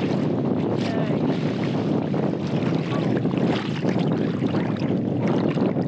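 Sea water splashing and sloshing around someone wading in, with wind buffeting the microphone.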